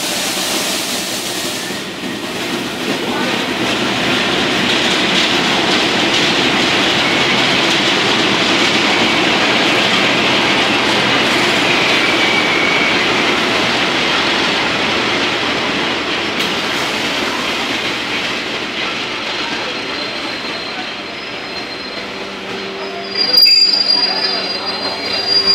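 TranzAlpine passenger train and its shunting locomotive rolling slowly past along the platform: a steady rumble of wheels on rails that builds over the first few seconds, with a brief wheel squeal about halfway through. Near the end comes a sharp clunk, then a high squeal sets in as the train slows into the station.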